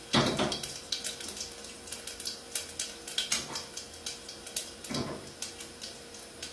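Whole cumin seeds, cloves and cardamom crackling in hot oil in a pan, with irregular sharp pops and a few louder ones.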